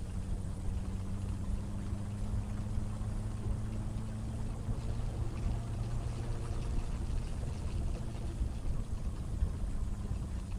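Benelli BN600i's inline-four engine running at a steady speed while riding, with wind rushing over the microphone as loud as or louder than the exhaust.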